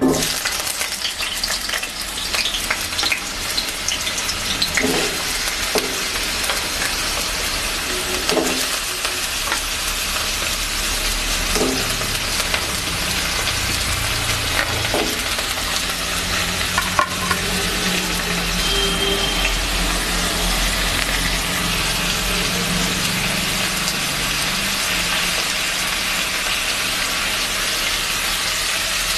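Potato pieces frying in hot mustard oil in a kadai: a steady sizzle that starts loud as the potatoes drop in, with a utensil scraping and stirring them a few times.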